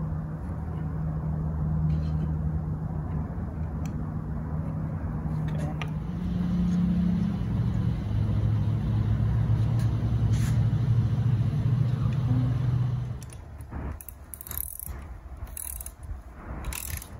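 An engine running steadily with a low hum, its pitch stepping up about six seconds in and down again about two seconds later, then cutting out around thirteen seconds in. A few light clicks and knocks follow.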